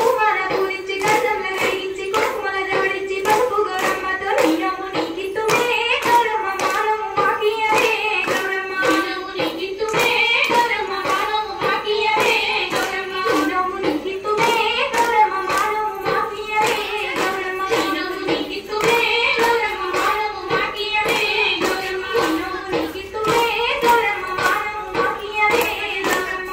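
Group of women clapping in a steady rhythm as they dance in a circle, with a women's folk song sung over the claps.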